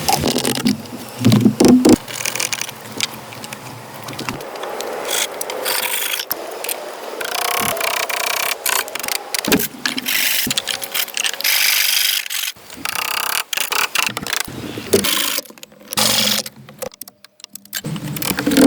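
Wood being worked with hand tools: rasping, scraping strokes in long stretches, broken by many sharp knocks.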